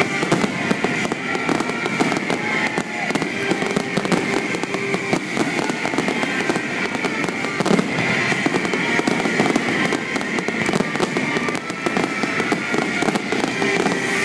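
Fireworks display going off in a dense, continuous barrage of rapid bangs and crackling, with no break.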